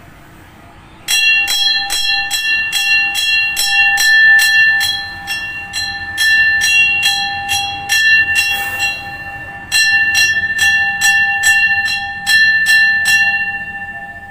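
A temple bell rung in quick, even strokes, about two a second, each strike ringing on the same clear tone. The ringing breaks off briefly past the middle, starts again about a second later, and stops near the end, the tone dying away.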